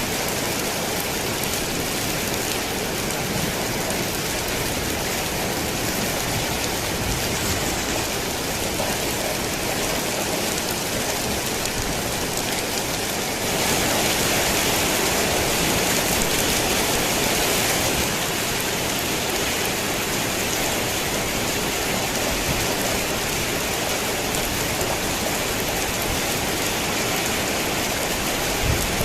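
Rain pattering steadily on a tin roof, a dense even patter that swells louder and brighter for a few seconds around the middle.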